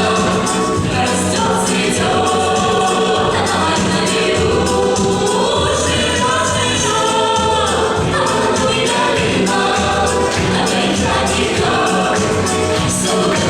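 Folk-dance song sung by a choir of voices over instrumental backing with a steady pulsing bass beat.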